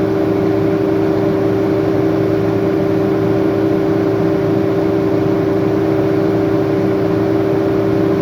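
Heavy earthmoving machine's diesel engine running at a steady, unchanging speed.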